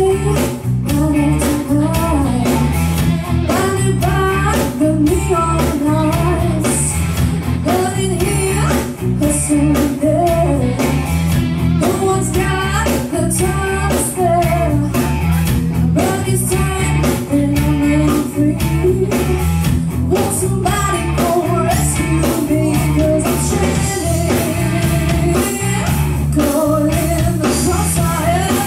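Live rock band playing: a woman singing lead over electric guitars, electric bass and a drum kit, with a steady beat.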